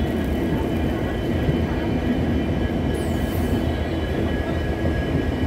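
Indian Railways red-and-grey LHB passenger coaches rolling past close by: a steady rumble of steel wheels on the rails, with a few faint steady tones over it.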